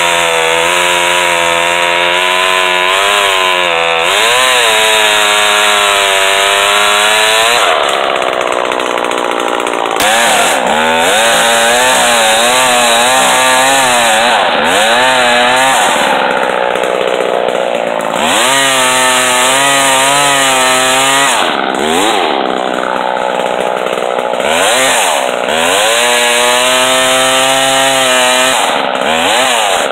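Homelite 150 two-stroke chainsaw cutting a fallen tree trunk, its engine pitch repeatedly rising at full throttle and sagging as the chain bites into the wood, then recovering between cuts.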